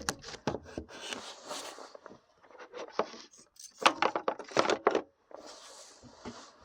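Handling noise from someone working with wiring and a plug: an irregular run of knocks, clicks, scrapes and rustling, loudest about four seconds in.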